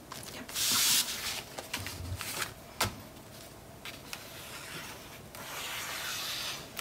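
Cardstock and patterned paper being handled on a cutting mat: a loud rustle of paper sliding about half a second in, a few light taps and clicks, then a softer scraping rustle near the end.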